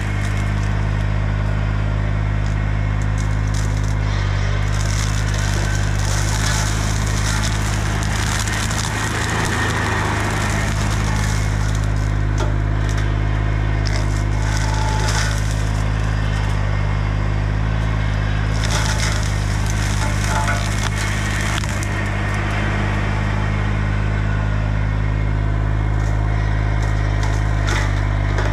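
Bobcat E35 mini excavator's engine running steadily while its hydraulic Baumalight brush mower head shreds brush and woody growth, with bursts of splintering and crackling every few seconds.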